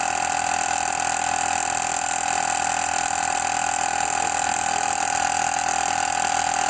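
Black Cat 12-volt DC portable tyre inflator (mini air compressor) running steadily while it pumps up a car tyre, one even, unchanging drone. The pressure is still climbing towards the 39 PSI set on its gauge, so the auto-cut has not yet switched it off.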